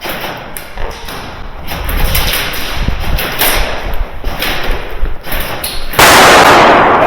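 Airsoft guns firing in irregular bursts with BBs knocking against hard surfaces. About six seconds in, a very loud rushing noise lasts about a second.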